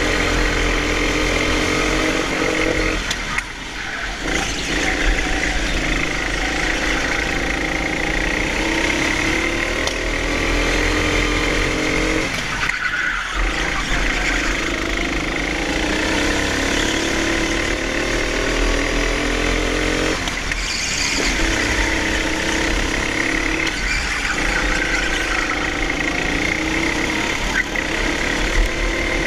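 Go-kart engine heard onboard, its revs rising and falling continuously through the laps and briefly dropping away about 3, 13 and 21 seconds in.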